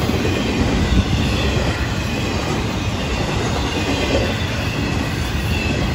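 Intermodal freight cars of a Florida East Coast Railway train rolling past close by: a steady rumble of steel wheels on rail, with faint high squealing from the wheels.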